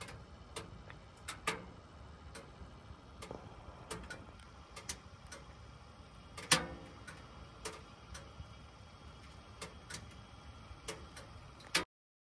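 Firewood crackling and popping as it burns in a POMOLY Dweller Max 2.0 wood stove: faint, irregular snaps, roughly one or two a second, with one louder pop a little past the middle, over a low steady background noise. It stops abruptly near the end.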